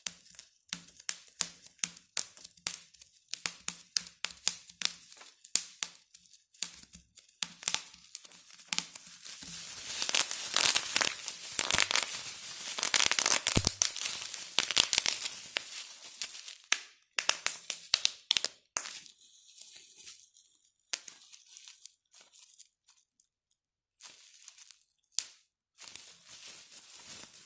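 Plastic bubble wrap being popped by hand: a run of sharp pops, building to a dense stretch of rapid popping and crinkling plastic through the middle, then thinning to scattered pops near the end.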